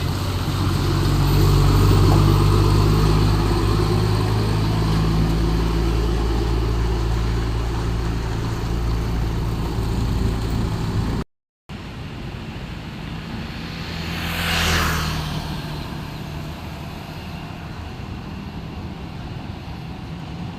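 Heavy diesel truck engine running close by with a steady low drone for about eleven seconds, then cutting off abruptly. After that a quieter traffic hum, with one vehicle passing by about three seconds later.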